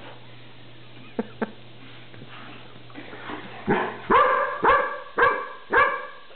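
A dog barking repeatedly at a candy wrapper that frightens it, five loud barks about two a second, starting a little past halfway. Two short sharp clicks come about a second in.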